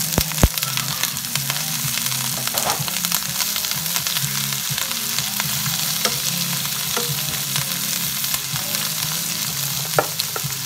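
Sliced bell peppers and onions sizzling steadily in hot oil in a nonstick pan, just added to the pan. A couple of sharp thumps right at the start and a utensil knock near the end as they are stirred.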